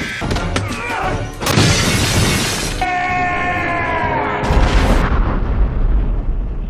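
Chopped-up film soundtrack of sound effects and music: a burst of noise like a crash or shatter, then a held tone sliding slowly downward, then a deep boom that rumbles and fades out over the last two seconds.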